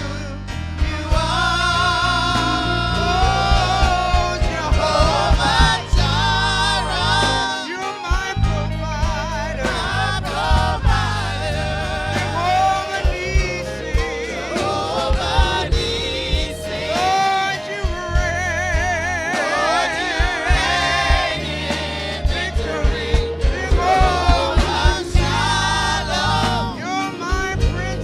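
Gospel worship music: voices singing a melody with vibrato over a band with bass and drums.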